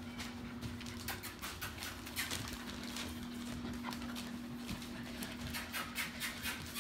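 Seven-week-old Great Pyrenees puppies scampering about on a tile floor, their claws clicking irregularly many times a second.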